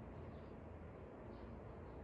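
A few faint, short bird chirps over a steady low rumble of wind.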